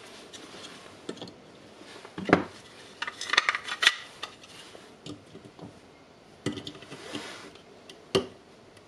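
Hard plastic parts of a Milwaukee M12 battery housing being handled and fitted together: scattered clicks and knocks. The loudest is a knock about two seconds in, followed by a cluster of clicks around three to four seconds, with single knocks later on.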